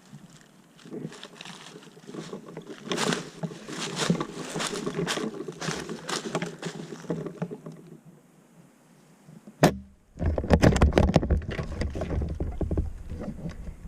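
Rustling and crackling movement, a single sharp snap just under ten seconds in, then a loud low rumbling with crackles, like wind or handling on the microphone.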